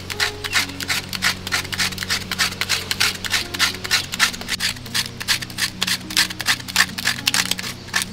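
Knife blade scraping birch bark in quick repeated strokes, about five a second, raising fine bark shavings as tinder for lighting a fire.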